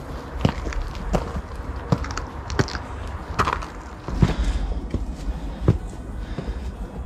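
A hiker's footsteps on a mountain trail, about one step every three-quarters of a second, each a sharp scuff or crunch, over a low rumble.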